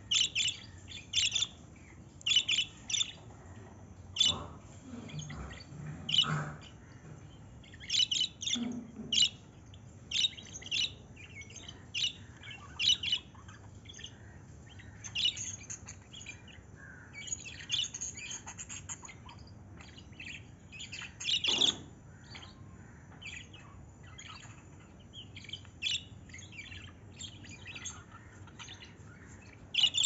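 Budgerigars chirping and chattering in short, irregular high-pitched calls, with one louder call about two-thirds through.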